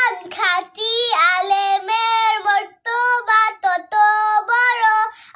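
A young girl chanting a hadith in a sung, melodic recitation, holding long steady notes between short breaths.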